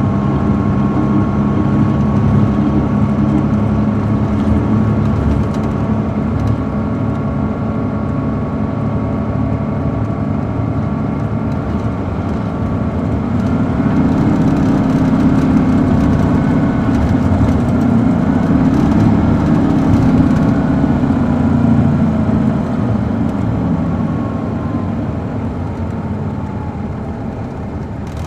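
Caterpillar C13 ACERT diesel of a 2007 MCI D4500CL coach, heard from inside the cabin. It runs steadily at first, then about halfway through it pulls harder and its pitch climbs twice, with a brief drop between the climbs, before it eases off and grows quieter near the end.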